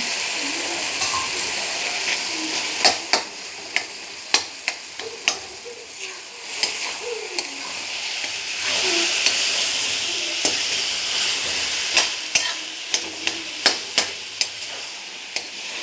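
Mashed roasted aubergine (baingan bharta) sizzling in hot oil in a kadhai while it is stirred in with the tomato masala, a steady high hiss with frequent sharp clicks of the spoon against the pan, more of them from a few seconds in.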